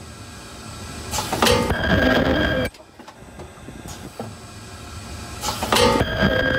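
Automatic monodose plastic strip filler and sealer running at its tail-end punching station. It goes through two working cycles a few seconds apart, each a loud stretch of mechanical noise lasting about a second and a half that stops sharply, with quieter running between.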